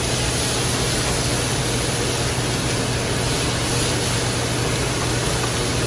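Steady rushing noise with a low hum from a commercial kitchen's lit gas range and ventilation, with vegetables cooking in a sauté pan.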